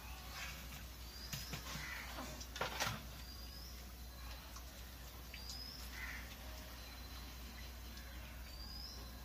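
Birds calling: short high rising chirps repeating every two seconds or so, with a few lower, rounder calls among them. A few metal clinks about one and a half and three seconds in, from a ladle knocking on the frying pan.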